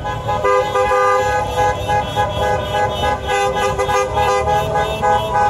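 Several car horns honking over and over in a pulsing rhythm, celebratory honking in the street, over a low rumble of traffic.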